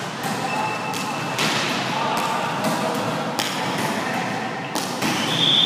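Volleyball rally in a large gym: a volleyball being struck and thudding several times, a second or two apart, echoing around the hall, with players' voices calling.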